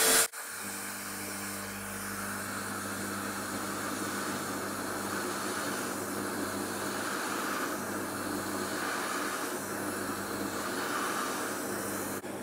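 Bench polishing motor spinning a cloth buffing mop, with a dust-extraction vacuum running alongside: a steady hum under an even hiss. A wire-toothed mop rake is held against the spinning mop to clean it, and the hiss swells now and then.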